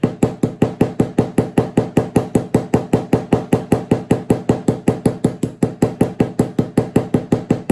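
Ball peen hammer making small, quick taps on a straight razor's pivot pin, about six a second in a steady rhythm, each with a short metallic ring: peening the pin end into a mushroom head over the washer to hold the scales.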